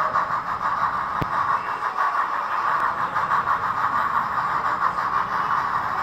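Two HOn3 narrow-gauge model steam locomotives running double-headed with a train: a steady mechanical running noise, with one sharp click about a second in.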